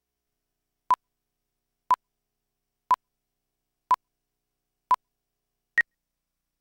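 Countdown beeps of a commercial's slate leader: five short, identical electronic beeps a second apart, then a sixth, higher-pitched beep near the end as the countdown runs out. There is silence between the beeps.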